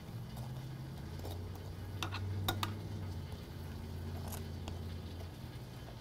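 A metal spreading knife clinking against a glass jar of burger sauce a few times as sauce is scooped out and spread on a toasted bun. The clinks are short and sharp, two or three about two seconds in and another past four seconds, over a low steady hum.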